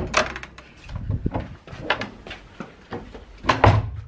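Room doors with metal lever handles being handled: a string of knocks and clicks, loudest at the start and again about three and a half seconds in.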